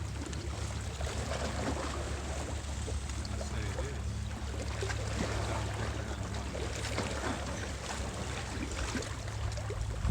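Steady bay shoreline ambience: a constant low rumble with a hiss of wind and water over it.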